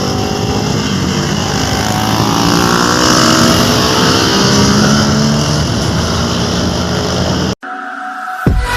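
Motorcycle engine running on the move with wind rushing past, its pitch rising and falling with the throttle. Near the end it cuts off abruptly and electronic music with a heavy beat starts.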